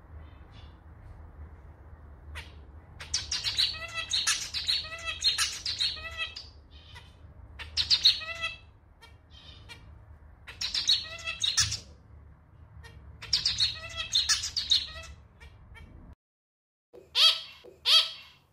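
Male zebra finch singing its song in repeated bouts of a few seconds each, made of stacked, nasal notes that sound like a small, slightly out-of-tune clarinet, over a low steady hum. The hum cuts off about sixteen seconds in, and a few loud short notes follow near the end.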